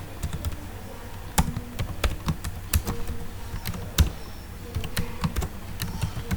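Computer keyboard typing: irregular key clicks, a few louder strokes among them, over a steady low electrical hum.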